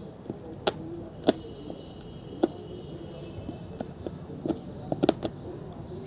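A dog's teeth knocking and gnawing on a weathered wooden plank: a handful of sharp, irregular taps, the loudest about a second in, with a quick double tap near the end.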